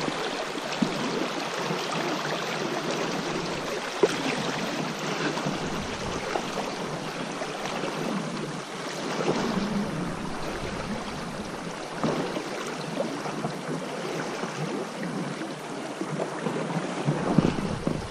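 River water rushing and splashing over a shallow, rocky riffle around a drifting inflatable boat, with a few sharp knocks.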